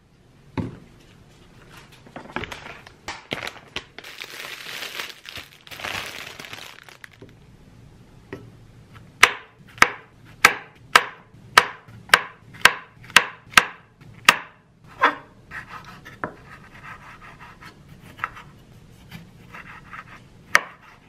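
Chef's knife slicing button mushrooms and cherry tomatoes on a wooden cutting board: a run of about a dozen sharp knife strikes on the board, roughly two a second, through the middle, with softer, irregular cuts after it. Some irregular handling noise comes before it.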